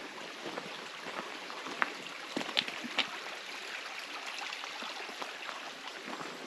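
Small woodland brook trickling and splashing over stones, a steady rushing hiss, with a few crunching footsteps on a gravel path about two to three seconds in.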